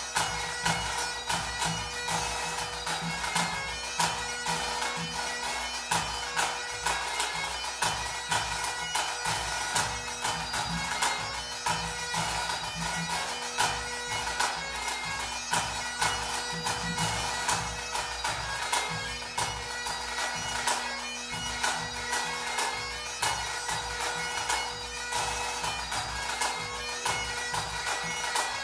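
Two Great Highland bagpipes playing a tune over their steady drones, with a pipe band snare drum rattling out dense strokes and a bass drum and tenor drum marking a regular beat.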